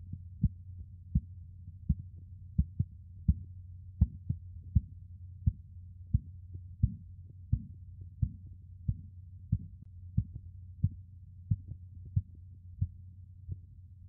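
Korotkoff sounds from the brachial artery heard through an amplified stethoscope: sharp, regular taps about three every two seconds over a steady low hum. They follow the first sound as the cuff pressure falls between systolic and diastolic.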